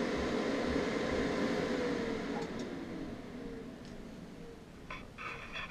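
Cooling fan of an Eastwood MIG 250 welder spinning down after the machine is switched off, its hum sliding down in pitch and fading away. A few faint knocks near the end.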